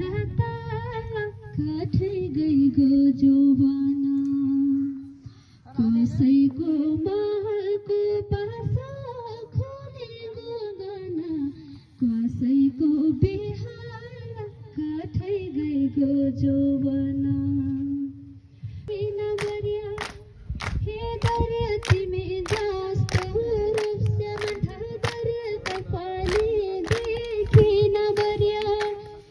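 A woman sings solo into a microphone: a slow melody with long held notes that slide up and down. About two-thirds of the way through, a steady beat of sharp strikes, a little over one a second, starts keeping time with her.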